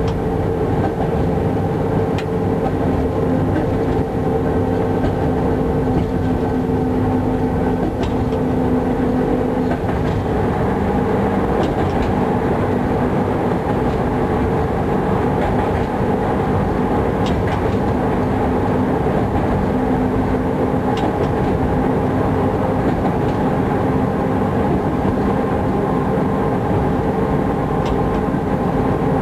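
Electric locomotive running at about 50 km/h, heard from inside the cab: a steady mechanical hum with a few faint clicks from the wheels. About a third of the way in the hum changes as the train enters a tunnel.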